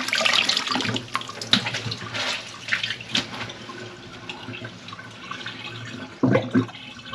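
Water splashing and running in a plugged kitchen sink, busy for the first few seconds and then quieter, with two loud low sloshes close together about six seconds in.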